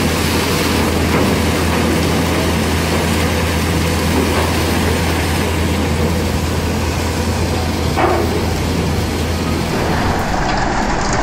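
Sugar mill cane-handling machinery running: feeder tables and cane conveyors making a steady mechanical din with a low hum underneath. The low hum drops away near the end.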